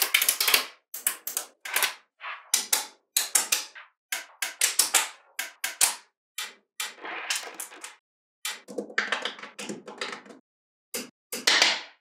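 Small magnetic balls clicking and snapping against one another in quick runs of sharp clicks, about one run a second, with short silent gaps between.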